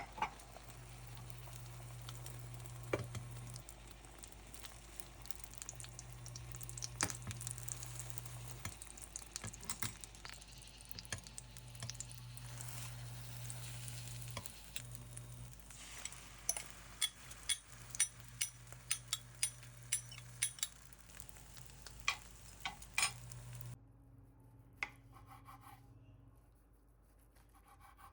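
Food sizzling in a frying pan, with sharp clicks and taps of a cooking utensil against the pan, a quick run of them in the latter part. The sizzle cuts off abruptly near the end, leaving a quieter room.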